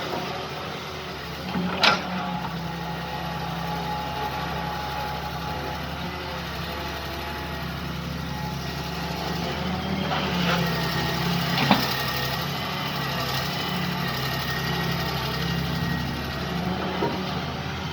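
Excavator engine running steadily, with two sharp knocks, about two seconds in and again near twelve seconds.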